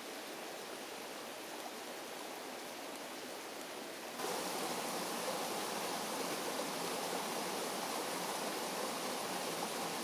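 Steady rushing of a forest stream, which becomes louder and fuller about four seconds in as a small waterfall cascading over rocks into the stream comes close.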